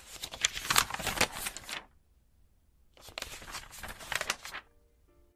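Pages of a book riffled quickly, making a rapid papery flutter of clicks, twice, each run lasting nearly two seconds with a short pause between. Soft piano music begins right at the end.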